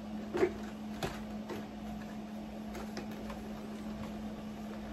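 A few faint, light clicks and taps from the plastic body of a BISSELL ProHeat 2X Revolution upright carpet cleaner being handled, over a steady low hum.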